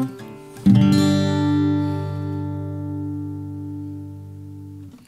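Acoustic guitar: a chord cuts off, a new chord is strummed about half a second later and left to ring, fading slowly, then damped near the end. Picked up close by a large-diaphragm condenser microphone.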